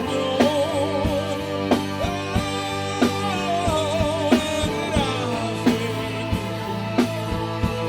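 Rock band playing a song: drums keep a steady beat under guitar and held chords, with singing and a wavering lead melody over them.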